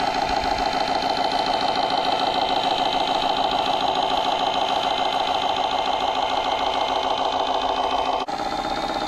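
Scale RC construction machine running: a steady, fast mechanical chatter. It cuts off abruptly about eight seconds in and a similar machine sound carries straight on.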